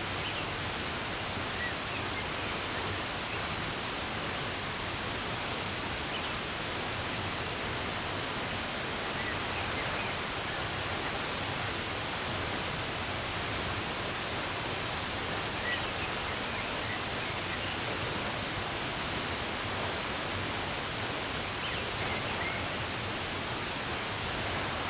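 Steady, even rush of running water, with a few faint, brief bird chirps scattered through it.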